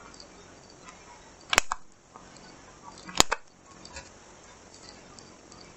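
Small handheld hole punch squeezed twice, each squeeze a sharp click as it cuts through the laminated paper of a lacing board, the two clicks about a second and a half apart.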